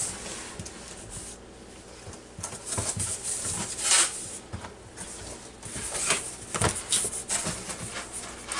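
Cardboard shipping box being handled and its flaps opened: irregular scraping and rubbing of cardboard, mixed with rustling from a jacket sleeve brushing close by, in a series of short scrapes, the loudest about four seconds in.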